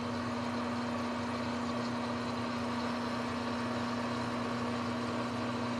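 Manual lathe running with the threading feed engaged, a steady hum with one strong low tone, as the tool travels along the bolt on a light first single-point threading pass.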